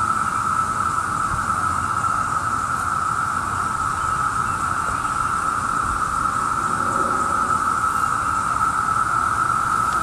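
Chorus of many Brood II periodical cicadas (Magicicada) singing at once: a loud, unbroken buzzing drone held at one pitch.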